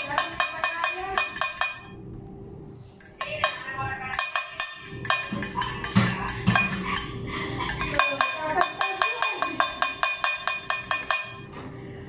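A metal fork clinking rapidly against a glass baking dish as a mixture is beaten: quick ringing taps several a second. The tapping pauses briefly about two seconds in and trails off near the end.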